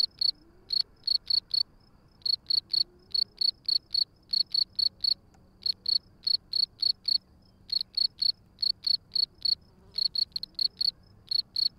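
European field crickets chirping: a high, clear chirp of three or four quick pulses, repeated about one and a half times a second. It is the rivalry song of males squaring off over a burrow.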